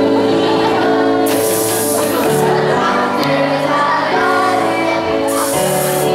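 Stage music for a children's song-play: long held notes over a lower moving line. Two bright, hissy washes sound, about a second in and again near the end.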